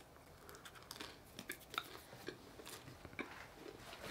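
Faint scattered clicks and small mouth sounds of eating and drinking: a sip from an aluminium soda can, chewing, the can set down on the table, and a paper towel roll handled near the end.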